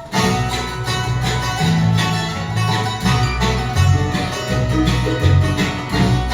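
Bluegrass band kicking off a tune, with picked banjo and guitar over a steady bass line; the music starts abruptly at the very beginning.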